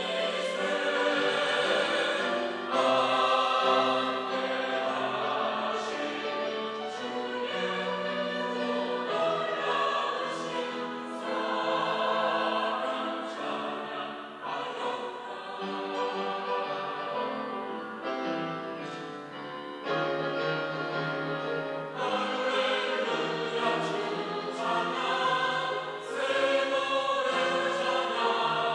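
Church choir singing a Sunday anthem in several parts. The voices hold sustained notes that swell and ease from phrase to phrase.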